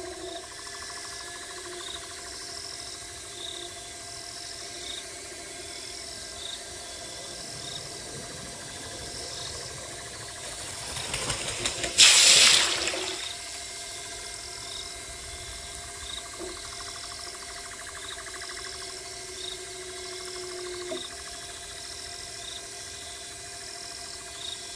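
Night insects chirping in the bush, short high chirps repeating about once a second over a steady low hum. About halfway through, a loud rush of noise swells and fades over roughly two seconds.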